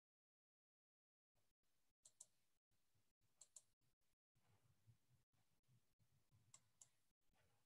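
Near silence: faint room tone with three quiet double clicks, about two, three and a half, and six and a half seconds in.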